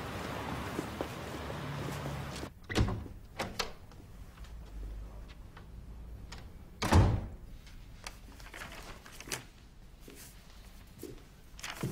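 A steady background hiss that cuts off after about two and a half seconds, then a few separate knocks and thuds of a door, the loudest about seven seconds in.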